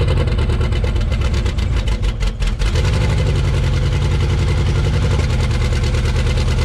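Twin-turbo LS V8 idling just after start-up following a head gasket replacement. It runs unevenly for a moment about two seconds in, then settles into a steady idle that is running pretty decent.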